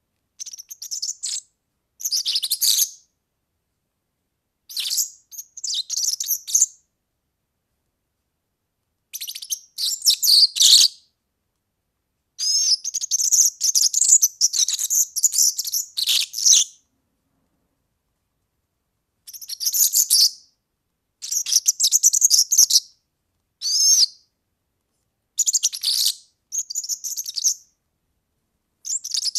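European serin singing: a string of short, high-pitched phrases of rapid twittering, each one to two seconds long, with a longer phrase of about four seconds near the middle. Complete silence falls between the phrases.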